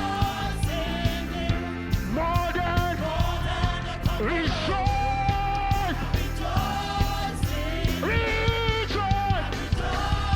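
Live gospel praise music: singers over a band with a steady drum beat, about two beats a second.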